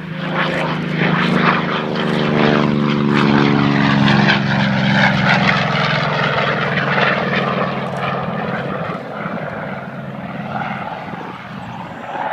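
Propeller aircraft flying past. Its engine drone swells, then drops in pitch as it passes and slowly fades.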